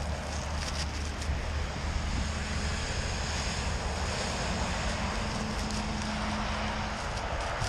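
Road traffic with wind on the microphone: a vehicle passing, its steady engine hum heard from about two seconds in until near the end, over a low wind rumble.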